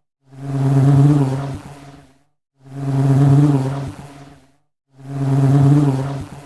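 Honey bee buzzing in repeated passes, about three in a row. Each swells up and fades away over about two seconds, with a short silence between them, like a looped recording.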